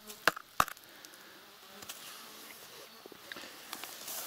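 Three sharp knocks in the first second as a clod of soil is handled at the tree root, then insects buzzing faintly.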